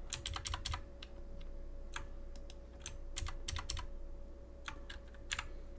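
Computer keyboard keystrokes: a quick run of key presses in the first second, then single presses spaced through the rest, as Ctrl and numpad plus are pressed repeatedly. A faint steady hum runs underneath.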